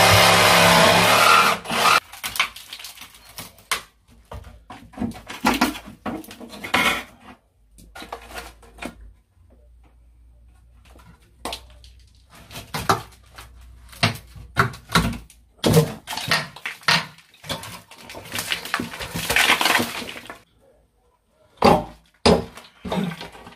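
Wooden door frame being wrenched off a doorway by hand: irregular cracks, knocks and scrapes as the timber splits and breaks away from the wall. Music plays for the first couple of seconds.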